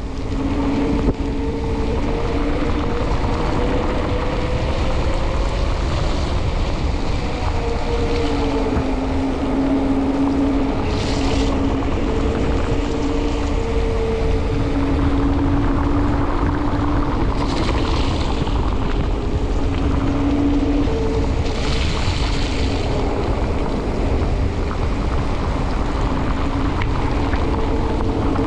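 Mountain bike's knobby off-road tyres humming on wet asphalt at speed: a steady two-tone drone that drifts a little with speed, over wind rushing on the microphone. Three short hisses come partway through.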